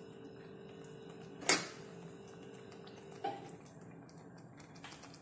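Steel spoon clinking twice against the pan and ladle as turmeric powder is tapped into a pan of curry, the first clink about a second and a half in and louder than the second, over a faint steady hum.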